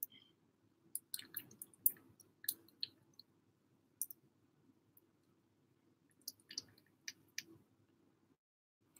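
A tiny kitten eating wet cat food off a plastic spoon: soft, wet clicks and smacks of its mouth, in two short bouts a few seconds apart.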